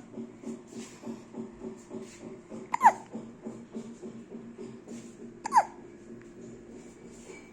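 A dog hiccuping twice, about three seconds apart; each hiccup is a short, sharp squeak that drops quickly in pitch.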